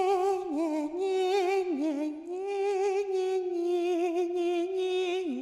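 A single high-pitched voice singing long, wavering held notes, with a drop in pitch near the end.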